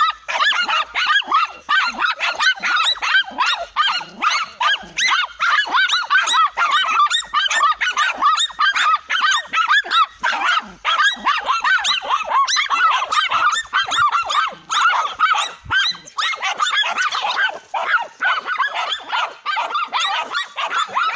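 Several small dogs barking and yelping at a cornered tegu lizard, a dense, unbroken run of short, overlapping high barks: hunting dogs holding their quarry at bay.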